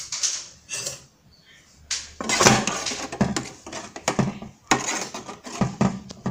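A spoon scraping and knocking against the side of an aluminium pot, a string of irregular short clatters as it stirs hot milk that lemon juice has just been added to, to curdle it.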